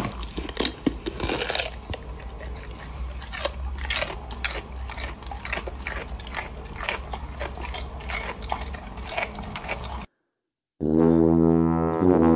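A golden retriever chewing a chew toy: an irregular run of crunching clicks as its teeth bite down on the toy. The chewing stops about ten seconds in, and after a brief gap music starts near the end.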